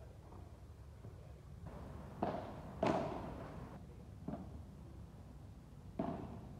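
Padel ball being hit back and forth in a rally: four sharp hits of ball on racket and court at irregular intervals, the second the loudest with a brief ringing after it.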